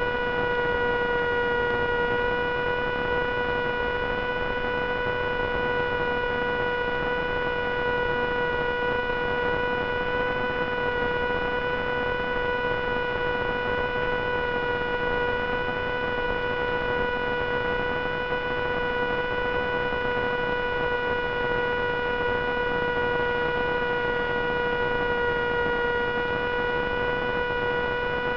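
Steady electrical buzzing hum with a constant pitch over a bed of hiss, on the audio track of an analog FPV video recording.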